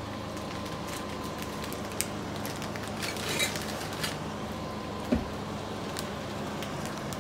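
Steady low hum of a running electric fan, with light clicks and rustling from a phone being handled, a sharp tick about two seconds in and a low knock about five seconds in.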